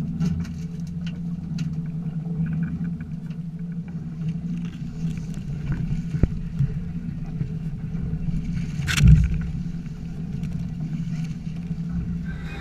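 Outboard motors idling with a steady low hum. A sharp click about six seconds in and a louder thump about nine seconds in.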